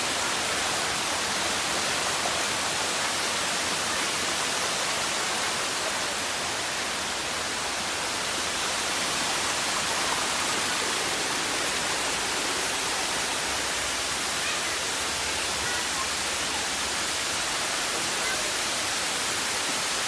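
Shallow water rushing over a stepped limestone waterfall cascade: a steady, even rush that is mostly high-pitched hiss.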